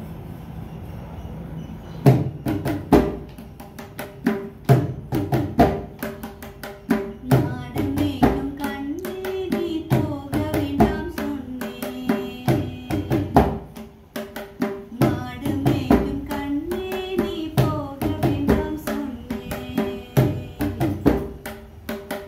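Mridangam played in a Carnatic rhythm, the sharp strokes starting about two seconds in, with a woman singing a Carnatic song over it from about seven seconds in.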